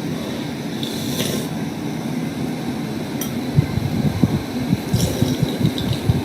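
Steady room hum with a few faint clinks of tableware as soup is tasted.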